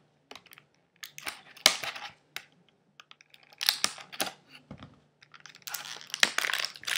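Scissors snipping through a stiff clear plastic blister pack, giving sharp clicks and crackles in three spells with pauses between, the plastic crinkling as it is cut.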